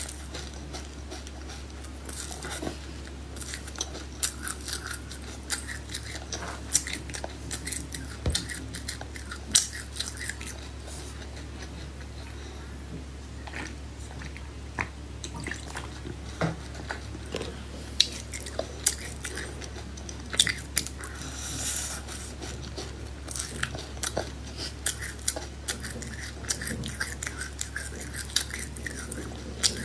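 Close-miked chewing and crunching of food, with many short sharp clicks and an occasional clink of cutlery on a dish, over a steady low hum.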